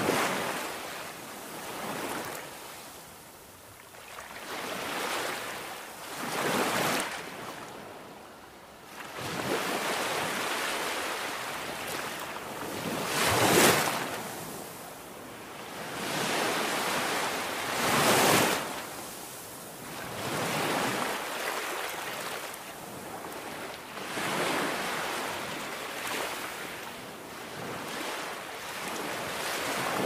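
Sea waves breaking and washing over a rocky outcrop, a rushing surf that swells and ebbs in surges every few seconds, the biggest surges about halfway through.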